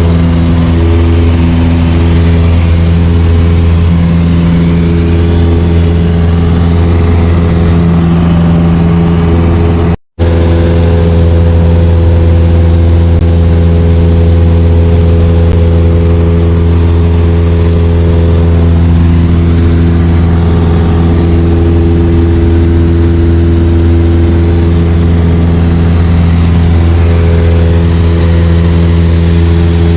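Light aircraft's piston engine and propeller heard from inside the cabin in flight, a loud steady drone at an even pitch. The sound cuts out for an instant about ten seconds in.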